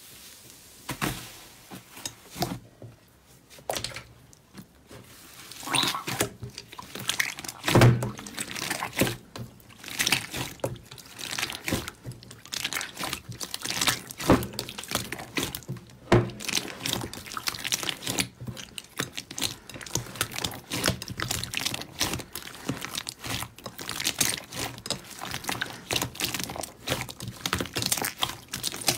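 Slime being squished and pressed, making a run of wet, irregular clicks and pops. The clicks are sparse at first and come thick and fast from about six seconds in.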